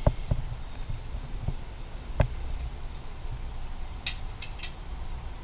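A few scattered knocks and clicks of a ratchet and socket against metal as the engine oil drain plug is threaded back into the oil pan, the loudest about two seconds in. Three light, quick metallic clicks follow near the end.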